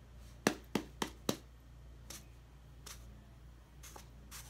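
Hands patting and tapping a small plastic cup mold packed with kinetic sand: four quick, sharp taps about a second in, then a few fainter taps.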